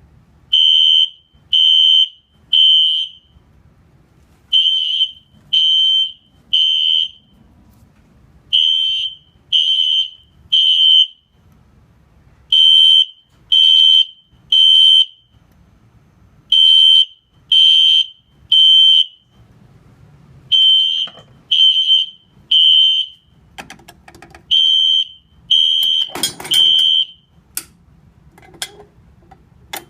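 System Sensor SpectrAlert P2475 horn/strobe sounding on its electromechanical, high-volume tone in the temporal code 3 evacuation pattern. It gives three short, loud horn blasts, then a pause, repeated seven times before it stops. A brief crackling rattle comes during the last group, and a few sharp clicks follow once the horn has stopped.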